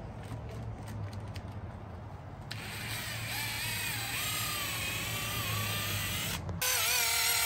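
Cordless drill spinning a foam polishing pad against an aluminum truck wheel, applying swirl remover. The motor's whine wavers in pitch, drops out for a moment near the end, then picks up again louder and steadier.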